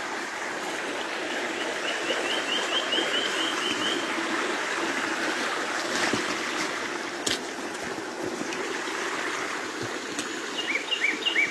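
Shallow spring-fed stream of water flowing steadily over stones and mud, a continuous even rush.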